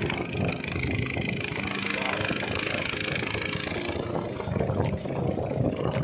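Motorcycle engine running steadily as the bike is ridden along a road.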